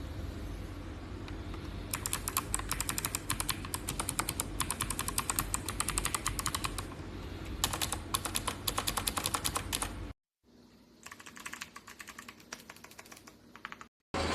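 Fast typing on a mechanical keyboard fitted with Kailh switches: dense runs of keystroke clicks that start about two seconds in, with a short pause near the middle. Just after ten seconds the sound cuts off, and fainter typing follows.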